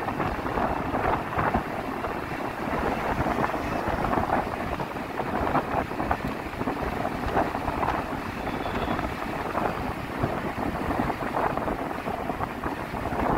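Wind buffeting the microphone over the steady rush of a moving vehicle on the road, a constant fluttering noise.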